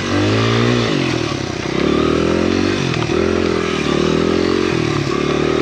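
Honda XR100R dirt bike's small air-cooled four-stroke single-cylinder engine running under load, its revs dipping and rising repeatedly as the throttle is worked.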